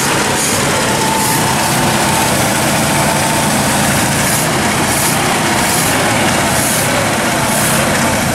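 Ford 300 cubic-inch inline-six of a 1980 Ford E-150 van running steadily, fed from a gas can by a temporary electric fuel pump after more than 20 years of sitting.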